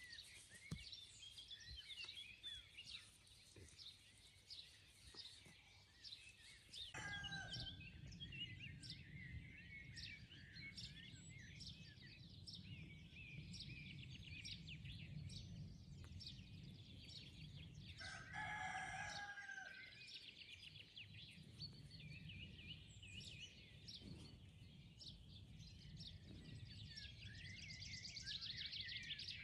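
Faint birdsong, small birds chirping throughout, with a rooster crowing twice, about seven and eighteen seconds in.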